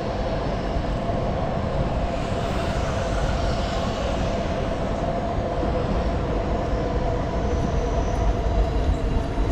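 Electric train running past, a steady low rumble with a steady mid-pitched whine held throughout.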